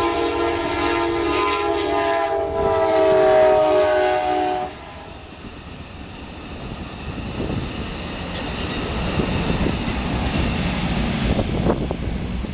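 Diesel locomotive's multi-note air horn sounding, breaking briefly about two seconds in, then sounding again with a slight drop in pitch and cutting off sharply about five seconds in. After it, the rumble of train wheels on the rails grows louder as the Amtrak passenger train nears, with a few sharp wheel clicks near the end.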